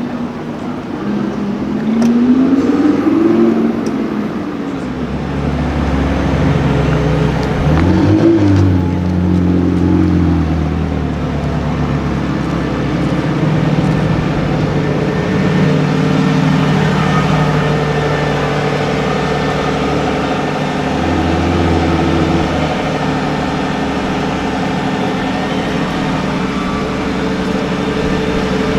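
A supercar's engine revving, its pitch rising and falling about two seconds in and again around eight seconds, then running steadily with a low drone for the rest of the time.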